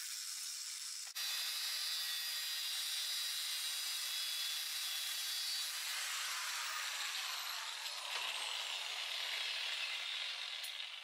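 Steady grinding noise of a power tool, most likely an angle grinder working on steel. It drops out for an instant about a second in, then carries on with a thin high whine over it.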